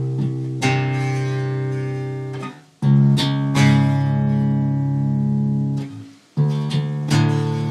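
Jackson electric bass played fingerstyle, two strings plucked together as a bar-chord-like double stop, each chord left to ring. Three pairs of chords, with a short break after each pair.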